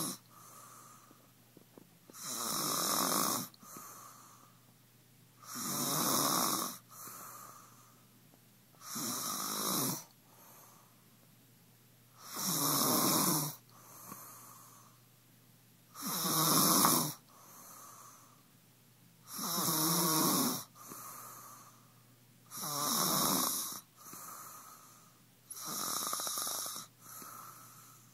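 Loud, regular snoring: about eight snores, each roughly a second long and coming about every three and a half seconds, with a quieter breath after each one.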